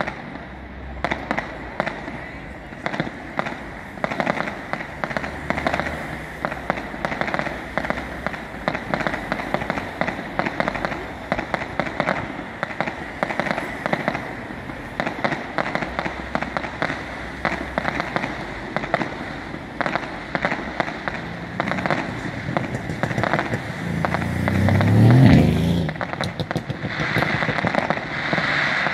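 Aerial fireworks shells bursting in a continuous string of bangs and crackles. Near the end a louder low rumble rises in pitch.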